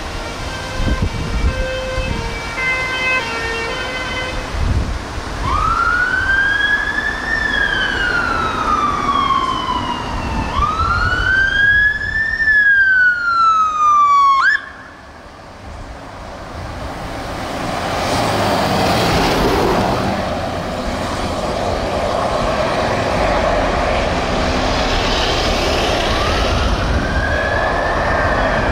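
Fire engine sirens passing: a two-tone hi-lo alternation for the first few seconds, then a slow wail rising and falling every few seconds, switching to a quick yelp just before it cuts off about halfway. After the cut, engine and road noise of the appliance driving off, with a wail starting again near the end.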